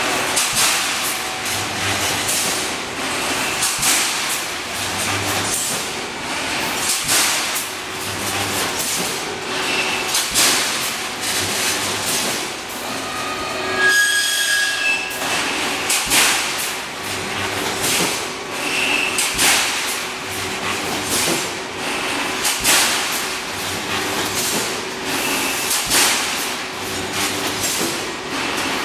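A pneumatic wire mesh welding machine running while it welds ribbed steel bars into reinforcing mesh. It makes repeated metallic clanks about every second and a half as the welding heads cycle, with a low hum that comes and goes in step and short hisses. A brief squealing tone sounds about halfway through.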